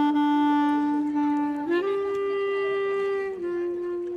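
Background music: a reedy wind instrument holding long notes, rising to a higher note about two seconds in and dropping a little near the end.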